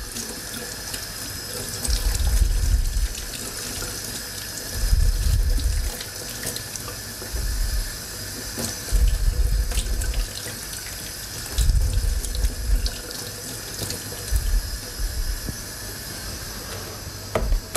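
Kitchen tap running into a stainless steel sink as a cured salmon fillet is rinsed under the stream to wash off the cure. The water's sound surges and shifts every second or two as the fillet and hands move through it.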